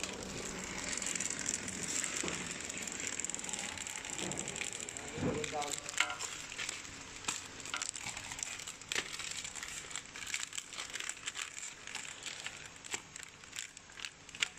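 Sealed foil-laminate pillow pouches crinkling and crackling as they are handled, with irregular sharp crackles from about six seconds in. Underneath is the steady running noise of a horizontal pillow-packing machine.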